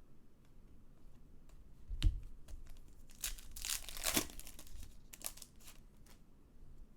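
Trading-card pack wrappers crinkling and tearing, and cards being handled, with scattered clicks. There is a knock about two seconds in, and the loudest rustling comes between about three and four and a half seconds.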